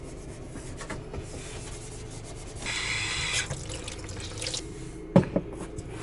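Cloth wiping a stainless steel stovetop and counter in a small kitchen, with a brief hiss about halfway through and two sharp knocks near the end.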